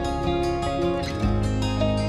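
Instrumental background music with plucked strings; a deeper bass note comes in just over a second in.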